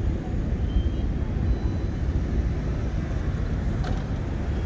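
Steady low rumble, with wind on the microphone.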